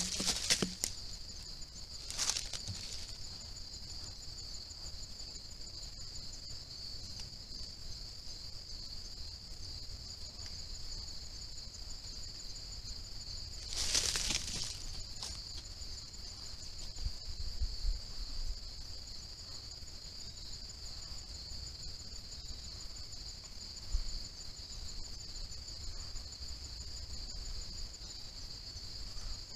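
Steady high-pitched trilling of an insect chorus. Brief noisy rustles break in near the start and again at about two seconds, and a louder rustle of about a second comes about halfway through.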